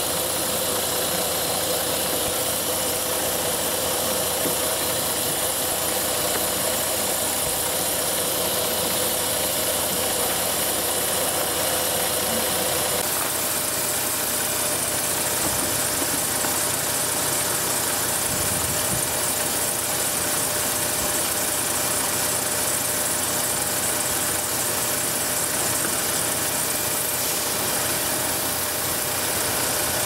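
2007 Jeep Grand Cherokee's 3.7-litre V6 idling with the hood open, with a steady hiss from around the plastic intake manifold. The hiss may be the normal noise that plastic intakes make rather than a vacuum leak. A faint steady whine in the background drops out partway through.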